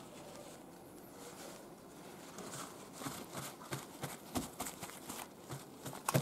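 Paper towel rustling and patting against small horse mackerel on a paper-lined table, blotting the moisture off the fish. Faint at first, then from about halfway a quick run of soft rustles and light taps, the loudest just before the end.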